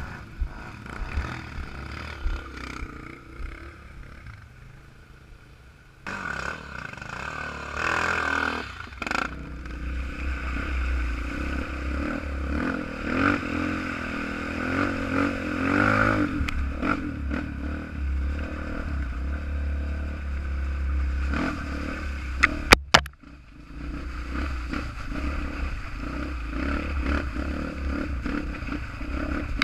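Single-cylinder four-stroke dirt bike engine running on a trail, its pitch rising and falling as the throttle is worked, quieter for a few seconds early on. A sharp knock about three quarters of the way through, followed by a brief drop in engine sound.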